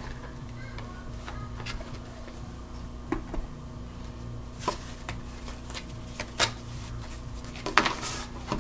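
A deck of cards being taken out of its cardboard box and shuffled by hand: scattered light clicks and rustles, with a cluster of sharper taps near the end as the deck is cut into two piles on the table. A steady low hum runs underneath.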